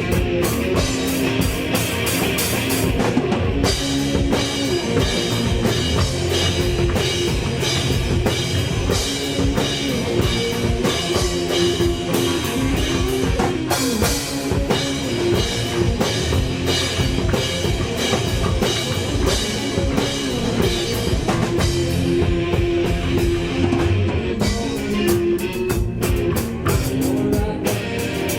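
Rock band playing live, with drum kit and electric guitar.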